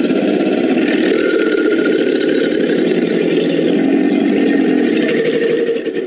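A crocodilian-call sound effect standing for an American alligator: one loud, rough, steady, engine-like sound lasting about six seconds, starting and stopping abruptly.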